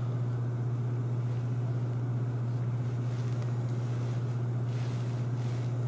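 A steady low hum with faint background noise, unchanging throughout.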